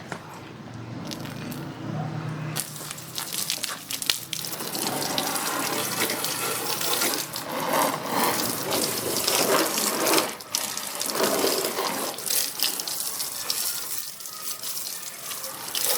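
Water running and splashing onto a motorcycle as it is washed. A low hum comes first, then the water starts suddenly about two and a half seconds in and rushes unevenly, swelling and easing.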